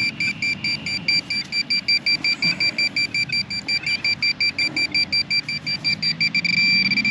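Metal detector beeping in quick high pulses, about six a second, that speed up and merge into one steady tone near the end as it closes in on a buried coin.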